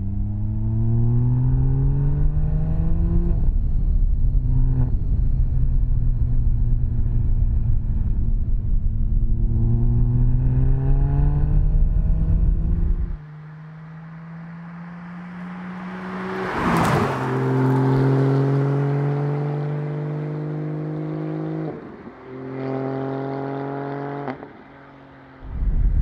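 Porsche 718 GT4's 4.0-litre flat-six through a Soul Performance race exhaust, pulling up through the gears in normal driving with upshifts around 3.5k rpm, each gear a rising tone. About halfway it drops abruptly to a quieter, steadier engine tone, with a brief rush of noise a little after, and the deep rumble comes back near the end.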